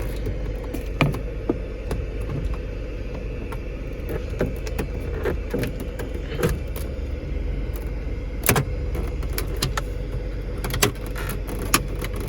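Scattered plastic clicks and knocks as a flat screwdriver pries the dashboard trim panel around the stereo loose from its retaining hooks, the loudest about two-thirds of the way through. A steady hum of the running car lies underneath.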